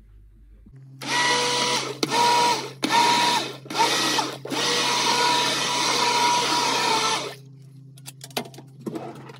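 Hand-held immersion blender puréeing hot cooked fruit in a pot: the motor runs with a steady whine in four short pulses, then runs steadily for about three seconds and stops. A few light clicks follow near the end.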